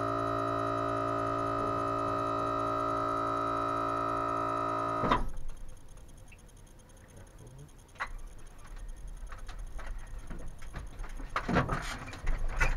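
A sustained music chord holds steady for about five seconds, then cuts off. After it comes a quiet stretch of low rumble with a few scattered clicks and knocks, growing busier near the end as a power wheelchair drives up the rear ramp into the van.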